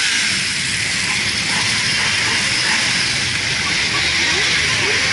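A column of motorcycles riding slowly past, their engines blending into a steady low rumble with a loud, even hiss over it.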